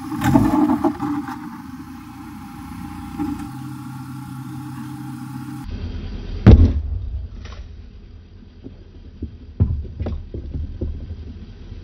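Large empty plastic mayonnaise jar crushed under a car tyre: a burst of crackling as the tyre presses on it, then one loud sharp pop as the jar gives way about six and a half seconds in. A few smaller plastic cracks follow.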